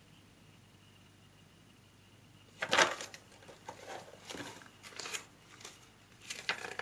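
Paper pages of a booklet manual being turned and riffled by hand. It is quiet at first, then a loud page-turn rustle comes about two and a half seconds in, followed by a run of shorter, softer rustles as the pages are flipped through.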